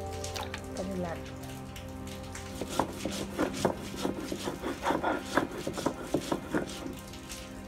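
Stone roller grinding mustard seeds on a flat shil-pata grinding stone: gritty scraping and cracking as the seeds are crushed into paste. The strokes come quickly and unevenly, several a second, starting about two and a half seconds in.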